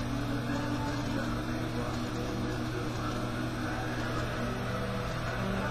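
Steady low drone with a few held tones that shift in pitch now and then, the soundtrack of an abstract animation heard through a television's speaker and picked up by a webcam's microphone.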